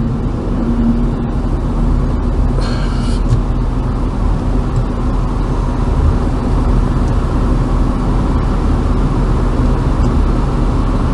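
Steady road and engine rumble heard inside a car's cabin in highway traffic, with a faint steady hum. A short hiss about two and a half seconds in.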